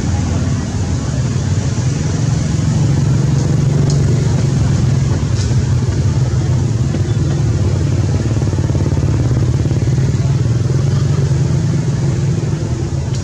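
A motor engine running steadily with a low, even hum, with a couple of faint ticks about four and five and a half seconds in.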